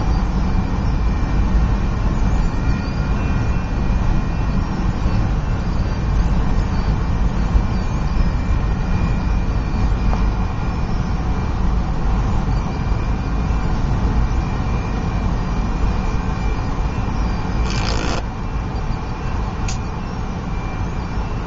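Freight train's last hopper cars rolling past the crossing, heard from inside a car as a steady low rumble that eases a little near the end. A short rush of noise comes shortly before the end.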